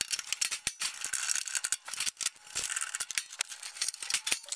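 Irregular small clicks and rattling from hands working electrical wires and a cord through a rubber grommet in the sheet-metal side of a nesting box, at a plastic control box.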